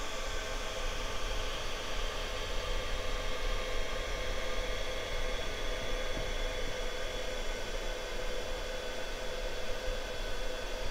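Engine-idle sound from a Torro Leopard 2A6 1:16 RC tank's built-in sound unit, played through its small speaker: an even, hissy drone with a few steady tones and no change in pitch.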